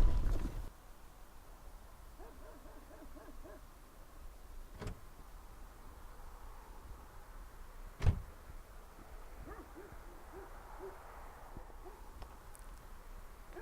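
A loud sound cuts off within the first second, leaving quiet ambience with faint, repeated low wavering calls. Two sharp knocks break the quiet, about five and eight seconds in, the second louder.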